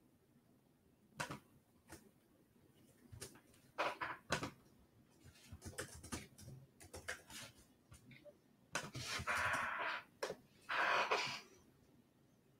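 Small off-camera handling noises: scattered clicks and taps, then two short hissing, rustling noises near the end.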